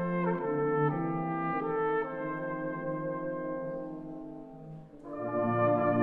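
Brass band accompanying a solo cornet in a slow song: held notes and chords that fade away, then the full band comes back in louder about five seconds in.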